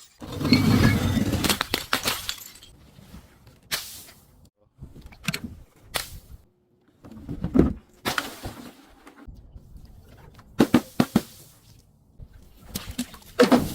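Brittle objects being crushed, crunching, cracking and shattering in a series of separate bursts with short quiet gaps between. The longest crunch comes near the start, with a cluster of sharp cracks about ten and a half seconds in.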